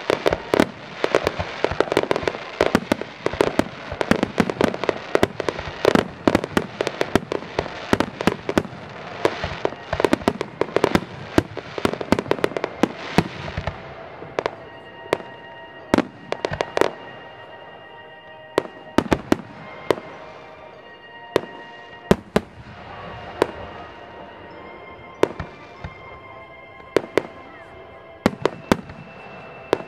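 Fireworks display: a dense, rapid barrage of shell bursts for about the first half, thinning after that to single bangs a second or two apart.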